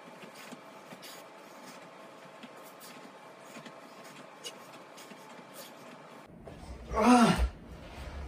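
Faint rustling and small taps as a man does leg-raise crunches on a padded weight bench, then, near the end, one loud vocal exhale of effort that falls in pitch, about half a second long, as he finishes the set and sits up.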